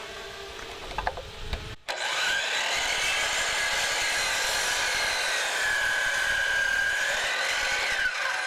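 DeWalt compound miter saw: its motor starts with a whine about two seconds in. The pitch sags as the blade cuts through wood, recovers, and falls away as the saw spins down near the end.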